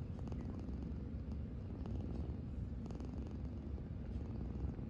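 Tabby cat purring in its sleep: a steady, low, continuous rumble right at the microphone.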